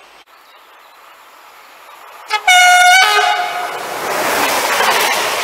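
SNCF Z 23500 double-deck electric multiple unit sounding its two-tone horn about two and a half seconds in, a short high note then a briefly lower one. Its rolling noise then swells as it approaches.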